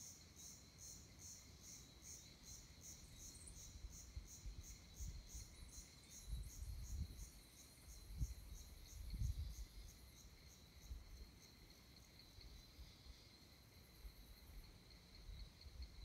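Insects chirping in an even rhythm, about three pulses a second, over a steady high whine; the pulsing fades after about ten seconds. A few low rumbles come between about five and ten seconds in.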